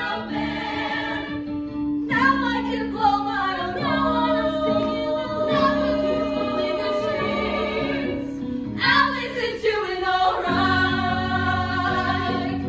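A small group of teenage girls singing a musical theatre number together, in harmony, over steady held accompaniment chords, with a low bass line coming in about ten seconds in. The song builds to a final held note that ends near the end.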